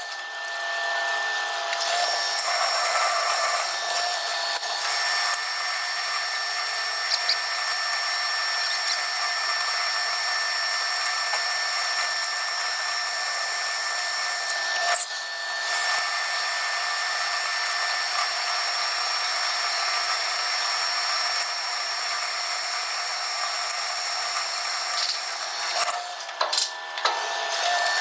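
Metal lathe running, a steady machine whine made of several fixed high tones over a hiss, with a short break about halfway through and a few clicks and dips near the end.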